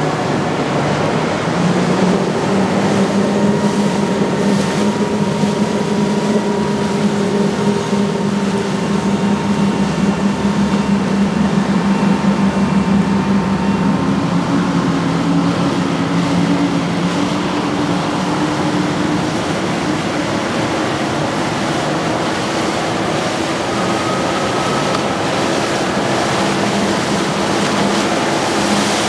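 Motor yacht engines running as Azimut flybridge yachts pass at cruising speed: a steady drone with a few held tones over the rush of water from the hulls and wakes. The tones change pitch about halfway through as the passing boat changes.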